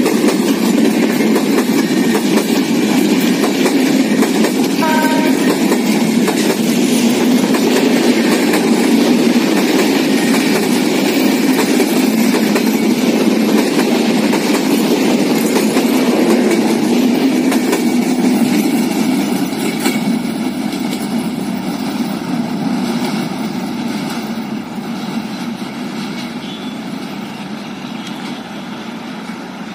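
Broad-gauge LHB passenger coaches rolling past on the rails: a steady loud rumble and clatter of wheels on track that begins to fade after about eighteen seconds as the train draws away.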